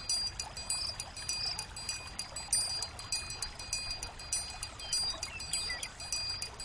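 Outdoor ambience track: rapid, short high chirps repeating throughout over a low, steady rushing noise.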